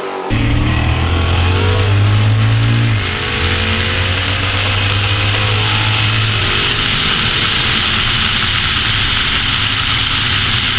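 Drag car's engine running at full throttle, heard from a camera mounted on the outside of the car, under heavy wind rush on the microphone. The engine note dips briefly about three seconds in, then carries on steadily.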